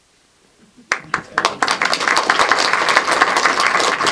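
Audience applause: near silence for about a second, then a few scattered claps that quickly swell into steady clapping.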